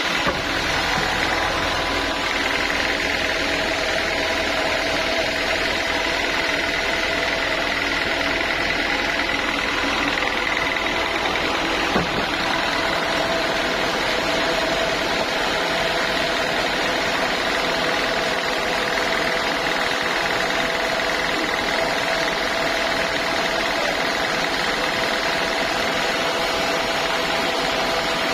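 Sawmill machinery running steadily: an engine-driven saw with a constant whine over mechanical noise, and one sharp knock about twelve seconds in.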